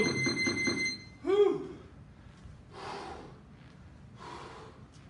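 A man breathing hard after an intense boxing interval round, catching his breath. A short high-pitched sound opens it, and a short voiced huff comes just after a second in. Then heavy exhales follow about every one and a half seconds.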